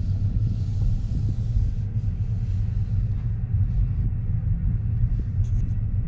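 Steady low rumble of a moving car: road and wind noise.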